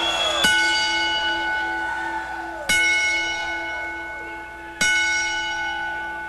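Wrestling ring bell struck three times, about two seconds apart, each stroke ringing out and slowly fading: part of a ten-bell salute tolled in memory of a dead wrestler.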